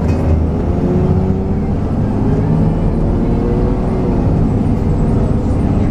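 Cummins ISB diesel engine and Allison automatic transmission of a 2004 Eldorado EZ-Rider II bus, heard from inside the cabin as the bus drives along. Steady engine noise, with a whine that shifts in pitch as it gets under way.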